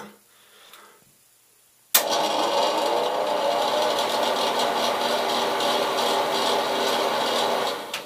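A switch clicks about two seconds in and a bathroom ceiling exhaust fan starts at once, running with a loud, steady mechanical noise made up of several steady tones, until it stops near the end. It makes a lot of noise, which the owner puts down to the fan's housing box rattling around in the ceiling.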